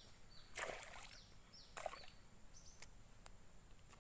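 Two brief splashes, about half a second and nearly two seconds in, from a hooked snakehead thrashing at the water surface. A bird calls over and over in short, high, falling chirps.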